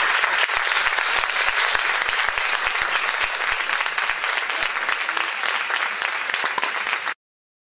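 Audience applauding, many hands clapping steadily; the applause cuts off abruptly near the end.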